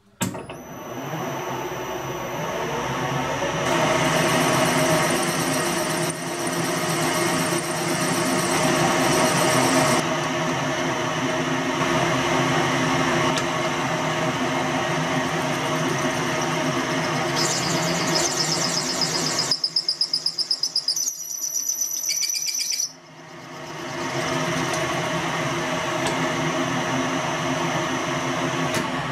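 Metal lathe running with a twist drill, held in a collet chuck in the tailstock, drilling through a nut blank turning in the four-jaw chuck. The machine starts just after the beginning, and a harsher cutting sound fills several seconds early on. Later there is a high, pulsing whine for a few seconds, then the sound drops away briefly and the lathe's steady running returns.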